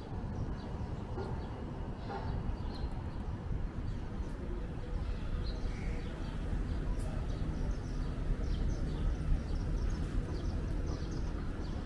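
Wind buffeting the microphone as a steady low rumble, with faint short bird chirps scattered over it.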